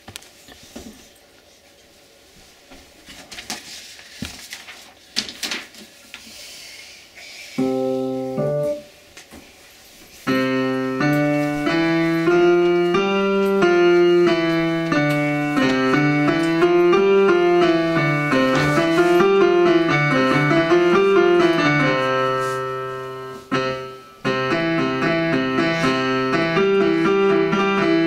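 Child playing a digital piano. After a few seconds of faint rustles and knocks, a short chord sounds about eight seconds in. A steady run of notes follows from about ten seconds in, breaks off briefly near the end and then starts again.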